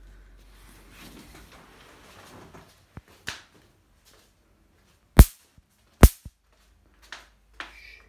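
Electric mosquito-swatter racket zapping: two loud, sharp cracks about a second apart a little past the middle, with fainter snaps before and after, as the charged grid discharges through insects. Some soft rustling handling noise comes first.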